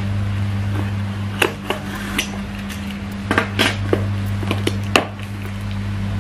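Cardboard shipping box being opened by hand: irregular sharp clicks, crackles and rustles of cardboard flaps and packaging, over a steady low hum.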